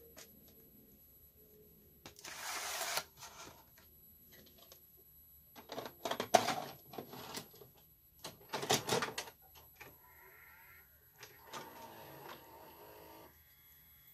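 A VHS cassette sliding into the tape slot of an Aiwa TV/VCR combo, then the deck's loading mechanism clunking and clicking as it pulls the tape in, with another clatter of clicks around the button press. Near the end the mechanism whirs steadily as it threads the tape and starts to play.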